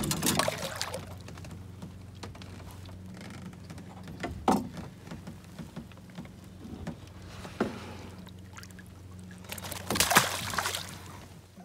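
Water splashing against a boat's side as a hooked pike thrashes at the surface, then a loud splash about ten seconds in as the pike breaks away from the hull. A steady low hum runs underneath, with a couple of sharp knocks in between.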